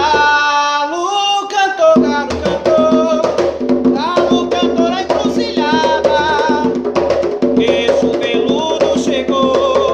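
Two conga drums played by hand in a steady rhythm, with a voice singing a ponto melody over the drumming.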